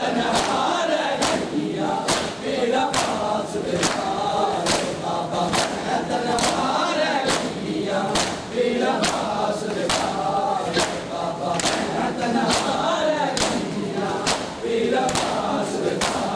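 A crowd of men chant a Muharram nauha together and beat their chests in unison during matam. The sharp slaps fall in a steady rhythm, about two a second, under the chanting.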